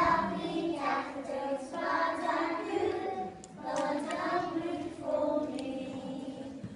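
A group of young children singing a song together in phrases.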